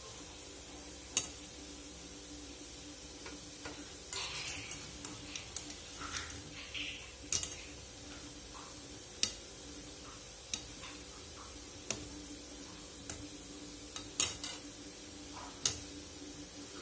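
Oil sizzling gently in a steel kadhai as dough pieces deep-fry on low flame, under a faint steady hum. Sharp, irregular clinks of a wire-mesh skimmer against the pan, a dozen or so, as the pieces are stirred and turned.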